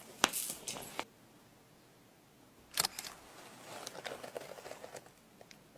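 Close-miked handling of small objects: a sharp click, then crackly rustling. A second click comes near the middle, followed by a softer crinkly rustle.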